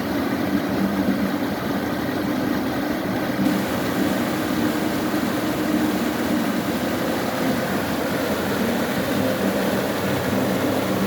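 Mountain valley stream flowing, a steady rush of running water.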